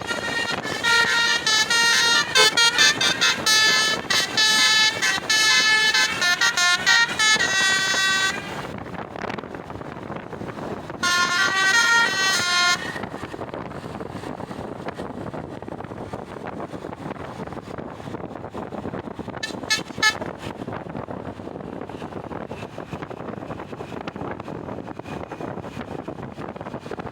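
Bus basuri (telolet) horn playing a tune of quickly changing notes for about eight seconds, then another short run a few seconds later and a brief toot near the end, over the steady noise of the bus's engine and road.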